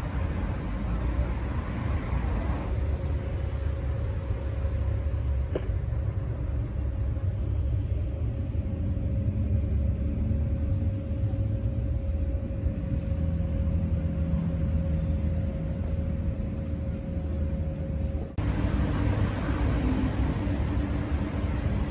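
Steady low outdoor rumble, the kind of traffic and wind noise an open-air phone recording picks up, with a faint steady hum through the middle. About eighteen seconds in it cuts abruptly to a similar rumble.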